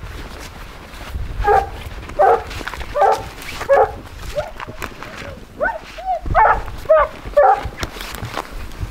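Hounds barking at a treed mountain lion: a string of about ten barks, roughly three-quarters of a second apart, starting a second and a half in.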